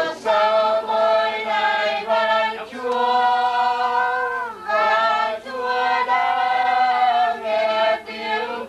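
A group of mourners singing a funeral hymn together without accompaniment, in slow, held notes with brief pauses for breath.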